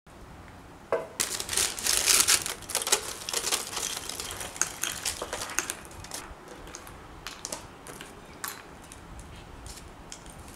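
Caramel-coated popcorn poured into a paper-lined pot: a dense rattle of light clicks and paper rustle starting about a second in, thinning to scattered clicks as the last pieces drop.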